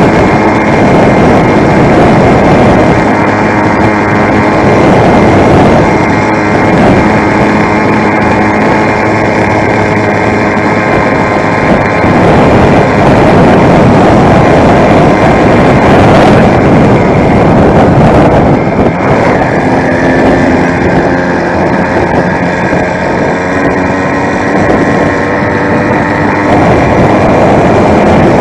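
Two-stroke YD100 motorized bicycle engine running under way on a ride, its pitch shifting up and down with the throttle, with wind rushing over the microphone.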